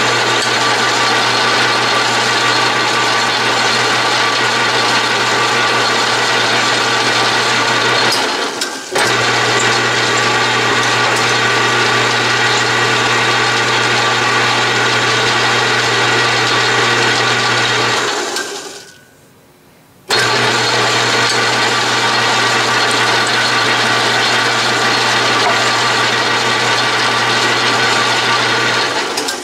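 Atlas/Craftsman 12-inch lathe running in back gears while cutting a thread: a steady mechanical gear whine over a low hum. The sound dips briefly about a third of the way in, then falls away for about two seconds about two-thirds through before coming back suddenly.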